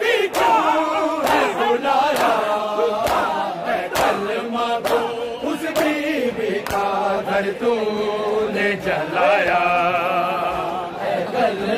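Men's voices chanting a Shia noha in unison, with the slaps of bare-handed chest-beating (matam) landing in a steady beat about once a second.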